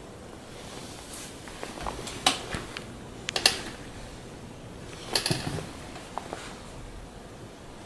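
A kitten playing on bare wooden floorboards: irregular light clicks and knocks. The sharpest clicks come about two, three and a half and five seconds in.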